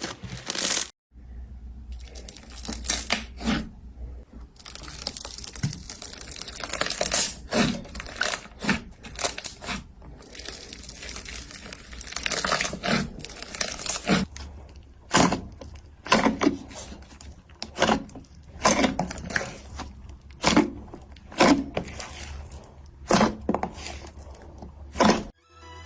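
Slime being squeezed and poked by hand, giving an irregular string of sharp pops and sticky crackles.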